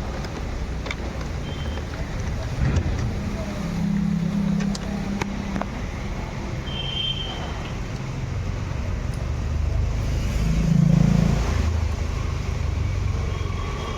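Steady low rumble of vehicle noise, with a few light clicks and knocks scattered through as air-intake pipes are undone in the engine bay.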